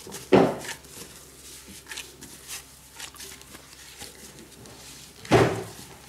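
Hands in thin plastic gloves kneading and squeezing buttery cookie dough in a glass bowl: soft squishing and rustling, with two louder thumps, one about half a second in and one near the end.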